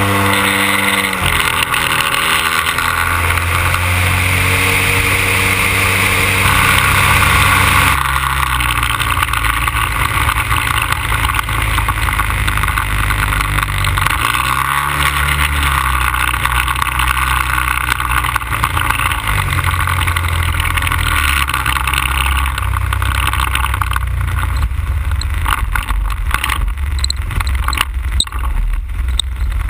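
100cc petrol engine of a large-scale radio-controlled Cessna 182 model running; its note drops about a second in, then holds fairly steady with small throttle changes.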